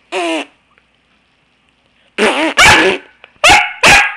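Pembroke Welsh Corgi barking in play: one short yip near the start, then four loud, sharp barks in two quick pairs from about halfway through.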